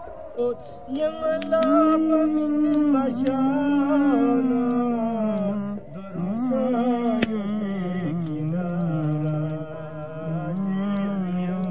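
A voice singing a slow, melismatic song with long, wavering held notes that slide between pitches.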